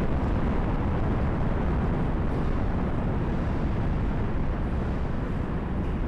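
Delta IV Heavy rocket's three RS-68 engines firing during ascent: a steady, deep rumbling noise that eases slightly in level.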